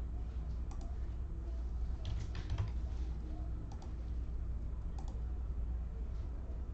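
A computer keyboard being typed on in short, scattered clicks, over a steady low hum.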